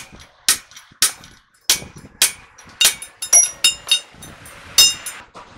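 About a dozen sharp metal-on-metal clanks and knocks at irregular intervals from tools and parts being worked on a truck's wheel hub, a few of them ringing briefly.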